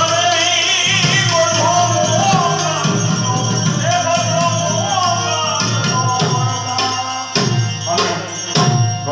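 Live Indian devotional bhajan: a harmonium's sustained reed tones carry a sung melody, with tabla strokes and jingling hand cymbals keeping the rhythm. A few loud, separated drum strokes come near the end.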